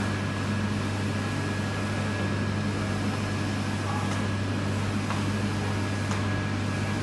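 A machine running with a steady low hum and a thin, steady high whine, with three faint clicks about a second apart in the second half.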